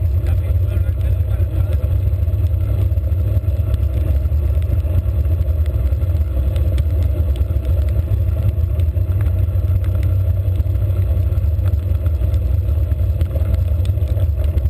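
Wind buffeting the microphone of a handlebar-mounted GoPro on a bicycle riding at speed: a steady low rumble.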